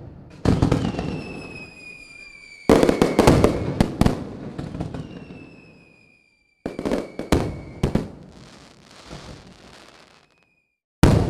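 Fireworks display: aerial shells bursting in a series of sharp bangs, several in quick succession around the middle, each trailing off into crackle. Twice a high whistle glides slowly downward in pitch.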